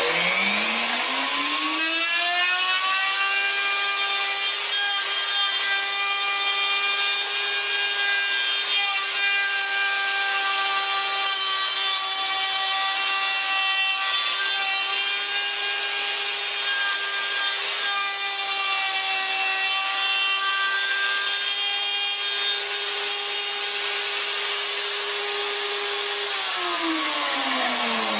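Wood router mounted in a pantorouter spinning up at the start, then running at a steady high whine as its bit cuts a rounded tenon from wood stock following a template, its pitch dipping slightly now and then as it bites. It spins down near the end.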